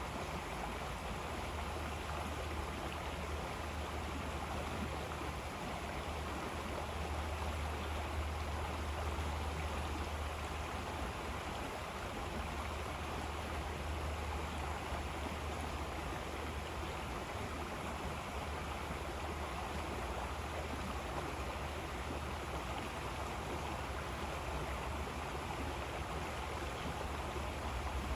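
River water flowing steadily: a continuous rushing with a deep low rumble underneath.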